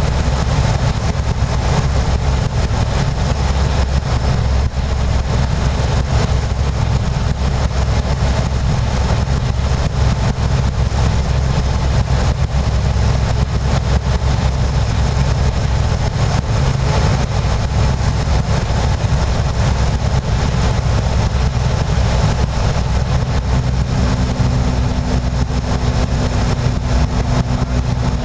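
The propeller engine of a Rider MD-3 microlight droning steadily, heard from inside the cockpit, with a rush of airflow over it. An extra steady tone joins about 24 seconds in.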